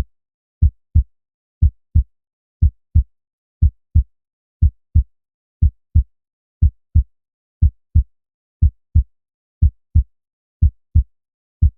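Heart sounds, 'tum-ta': the first heart sound from the closing of the atrioventricular valves and the second from the closing of the semilunar valves. Low thumps come in pairs about once a second, with a short pause inside each pair and a longer pause before the next, steady and regular throughout.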